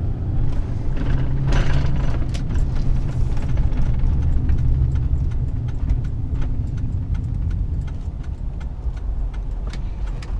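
Steady road and engine drone inside a pickup truck's cab at highway speed, with light irregular ticks and rattles.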